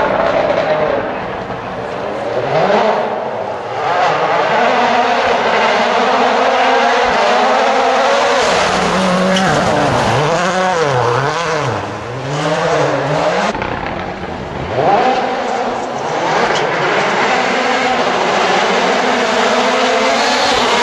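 Rally car engine revving hard, its pitch climbing and dropping again and again through gear changes and lifts. Around the middle it swings up and down several times in quick succession. A steady rush of tyre and road noise runs underneath.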